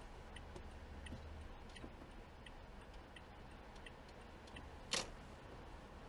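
Faint low rumble of road and engine noise inside a car's cabin, with light ticking repeating roughly once or twice a second. One sharper click comes about five seconds in.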